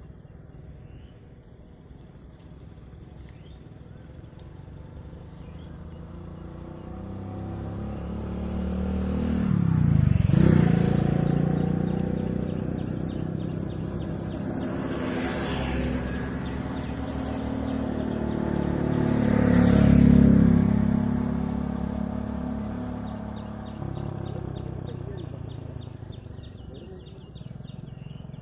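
Road vehicles passing one after another: the sound swells to a peak about ten seconds in and again about twenty seconds in, the engine pitch dropping as each goes by, then fades. Faint repeated high chirping underneath near the start and the end.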